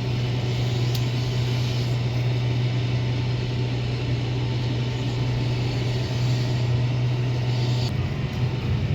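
Farm vehicle engine running steadily with a low, even drone that turns rougher near the end.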